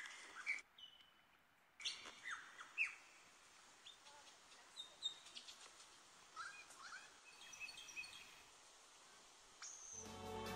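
Wild birds in the bush giving short chirps and whistles, some sliding down in pitch, scattered through a faint background. Music comes in near the end.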